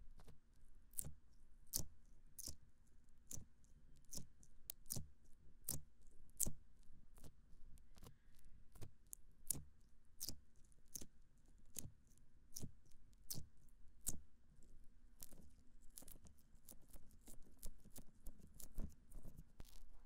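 Fingertips rubbing and squeezing the silicone ears of a binaural dummy-ear microphone, heard right at the ear: soft rubbing broken by crisp, irregular crackles and clicks, about two a second.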